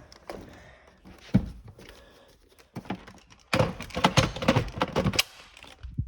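Plastic parts of a Shark vacuum cleaner being handled and fitted back together: scattered clicks and knocks, a sharp knock about one and a half seconds in, then a dense run of clattering for about two seconds near the end.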